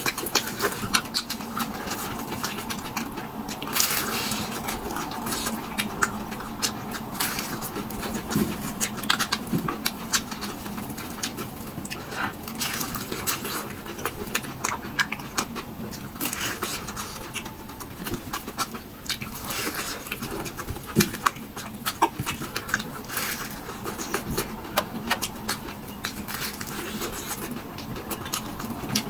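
Close-miked eating: chewing and mouth sounds with many short, irregular crunches and smacks.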